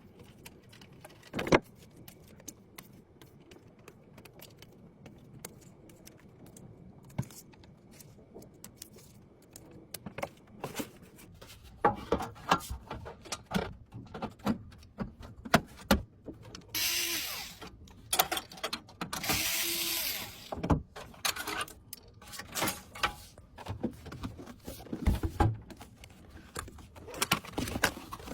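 Handling noises of PC parts being assembled: scattered small clicks, taps and knocks, growing busier in the second half, with two longer noisy stretches of about a second or more each midway through.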